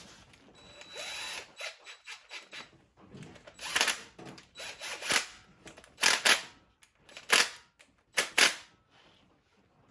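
Handheld power tool run in about five short bursts, each a fraction of a second long, spaced roughly a second apart, as when driving or spinning bolts.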